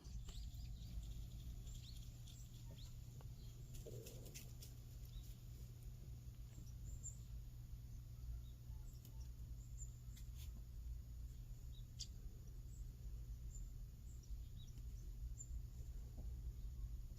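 Quiet outdoor ambience: small birds chirping here and there over a steady low rumble.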